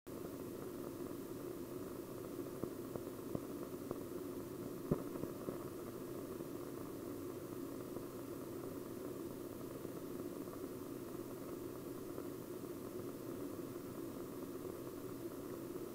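Steady hiss and low hum from an old film print's soundtrack, with a few faint clicks and pops between about two and six seconds in, the loudest near five seconds.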